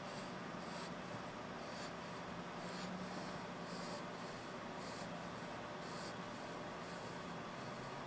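Plastic shaker bottle of dry barbecue rub being shaken over meat, the granules rattling out through the lid holes in faint, rhythmic scratchy bursts about twice a second.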